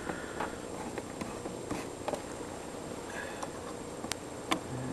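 Scattered light clicks and ticks of a T25 Torx driver working the screws down on a pickup's air filter housing lid, the sharpest click about four seconds in.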